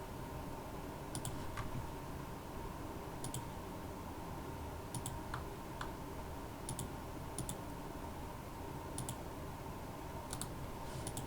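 Computer mouse clicking sparsely, about one click every one to two seconds, each a quick press-and-release pair, over faint steady background noise.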